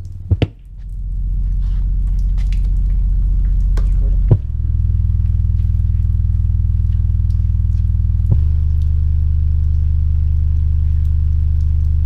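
Loudspeaker playing a steady, loud, low-pitched hum, the kind of low test tone used to shake a water hose so the falling stream seems to freeze or bend on camera. Two sharp pops come just before the hum starts, and the pitch switches abruptly with a click about four seconds in and again about eight seconds in.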